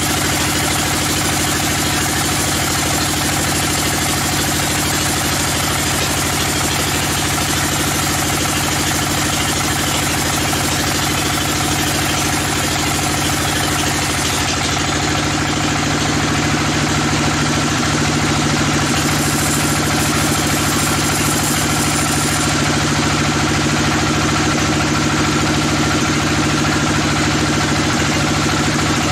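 Large band sawmill running with its blade ripping lengthwise through a teak log: a steady, loud mix of motor hum and saw noise. The tone shifts about halfway through.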